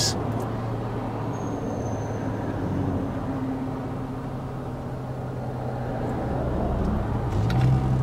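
Passenger car's engine and road noise heard from inside the cabin: a steady low hum whose pitch rises about seven seconds in as the engine speeds up.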